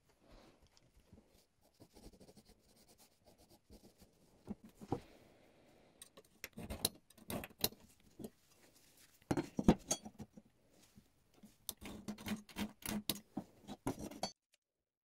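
Steel measuring tools being set down and shifted against a rusty steel plate: faint scraping at first, then a string of clinks and taps that grows busier in the second half. It stops suddenly shortly before the end.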